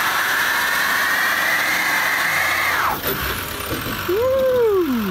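A 2019 GMC Sierra Denali HD's 6.6-litre Duramax turbodiesel V8 is held against the brakes in a burnout, and the rear tires spin on the pavement with a steady high screech. About three seconds in the screech falls away sharply. Near the end a short tone rises and then falls.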